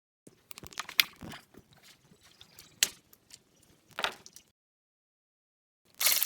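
Hand tools and metal parts clinking and knocking during work on a diesel engine: a run of clicks and rattles, sharp knocks at about one, three and four seconds, and a short clatter near the end.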